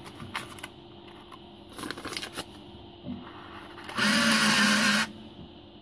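Paper rustling and light clicks as a folded banknote is pushed into an NV10USB+ note acceptor's bezel. About four seconds in, the acceptor's transport motor runs steadily for about a second, drawing the note in to escrow.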